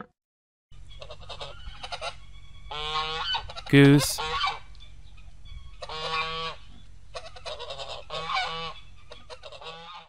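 Domestic geese honking: runs of repeated calls with short pauses between them.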